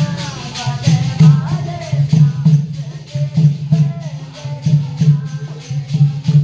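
An elderly man singing a Hindu bhajan (devotional song) in a wavering melodic line, over a steady jingling percussion beat of about three strokes a second.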